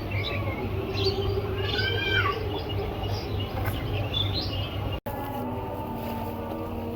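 Small birds chirping in short repeated calls over a steady low hum. About five seconds in the sound cuts off abruptly and a steady droning tone takes over.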